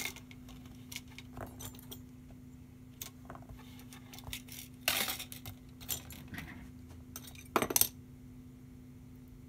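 Small hand tools and the plastic laptop bezel handled and set down on a workbench: scattered light clicks and clinks, with a short clatter about five seconds in and the loudest pair of sharp clicks near the end, over a faint steady hum.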